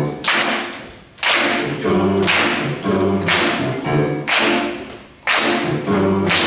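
Youth choir singing a funk pop song in parts, punctuated by sharp struck hits with a ringing tail about once a second.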